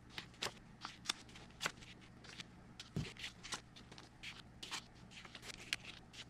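Paper dollar bills being flipped through one at a time, making a quiet, irregular series of crisp paper flicks and snaps, about two or three a second, with a soft knock about three seconds in.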